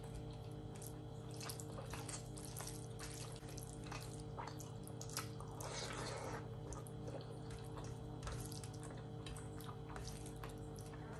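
Close, wet eating sounds: fingers squishing rice through curry gravy and a mouth chewing and smacking, heard as many short wet clicks. About six seconds in comes a denser, longer rustling squish as a handful of rice goes into the mouth.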